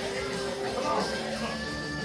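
Rock music playing, with long held notes.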